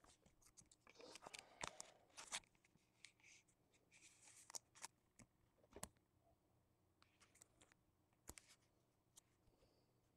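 Faint handling of trading cards: paper-like rustling with a few sharp clicks, busier at first and sparser in the second half.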